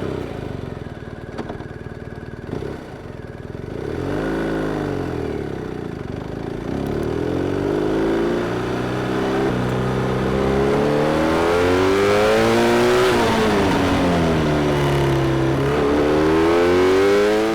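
BMW R1250RS boxer-twin engine under hard acceleration, its revs climbing through the gears in repeated rising sweeps. The revs rise and fall once about four seconds in, drop off around thirteen seconds in, then climb again near the end.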